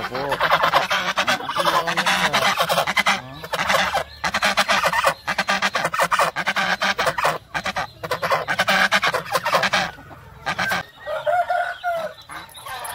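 A flock of white domestic ducks quacking loudly, many calls overlapping in a dense, continuous chorus. The quacking thins out and gets quieter about ten seconds in.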